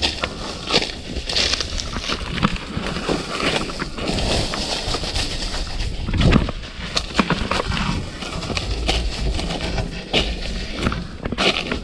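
Footsteps and rustling while pushing through bushy undergrowth: irregular crunches, snaps and brushes of leaves and twigs, with a low rumble underneath.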